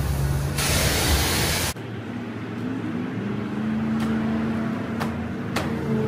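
Car-wash pressure wand spraying water in a loud steady hiss, which cuts off suddenly about two seconds in. A quieter steady low hum follows, with a few faint clicks.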